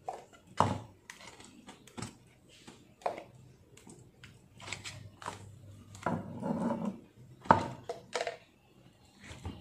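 Silicone spatula scraping blended spice paste out of a blender jar and smearing it onto a raw chicken in a pan: scattered knocks and scrapes, with the sharpest knocks about half a second in and about seven and a half seconds in.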